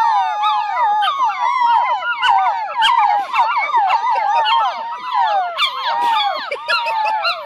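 A litter of puppies howling together, many overlapping howls rising and falling in pitch, with one long drawn-out howl near the start.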